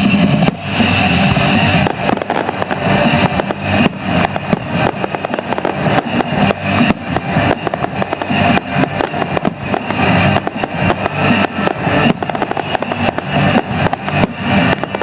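Fireworks display: aerial shells bursting in rapid succession, many sharp bangs close together, over loud music.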